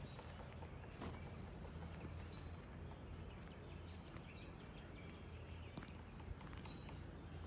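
Faint outdoor ambience: a steady low rumble with a few short bird chirps and occasional light clicks.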